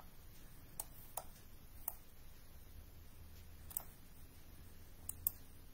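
Quiet room tone with six small, sharp clicks scattered through it, the loudest near the end.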